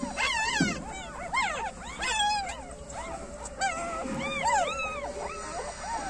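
Newborn puppies squealing and whimpering, many short rising-and-falling cries overlapping one another several times a second.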